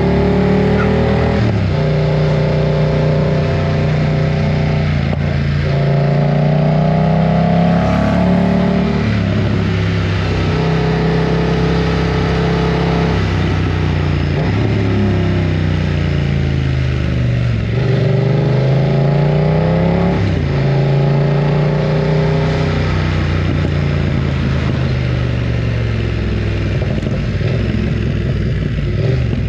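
BMW F900 R's parallel-twin engine running loud under way. The revs climb and drop sharply several times as gears change, fall away for a few seconds near the middle, then pull up again.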